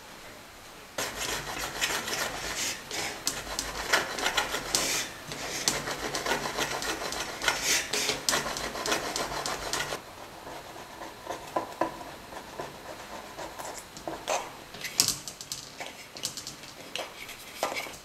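A thin metal spatula scraping around the inside wall of an aluminium chiffon tube pan to loosen the baked cake, a busy rasping with many small clicks. About halfway through it gives way to quieter, scattered ticks as a wooden skewer is run around the centre tube.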